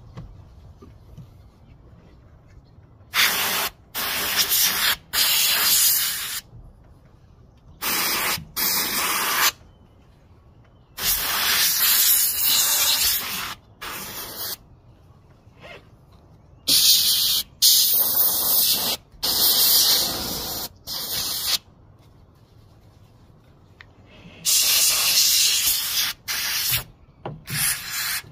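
Can of compressed-air electronics duster spraying in about a dozen short hissing blasts, some under a second and some a couple of seconds long, blowing debris out of a car sunroof's tracks and drain holes.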